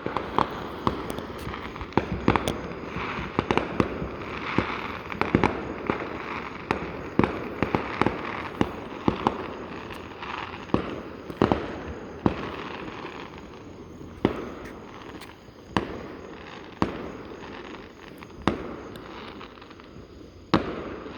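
Fireworks going off: a steady crackle with many sharp bangs at uneven intervals, sometimes several a second, the crackle thickest in the first half.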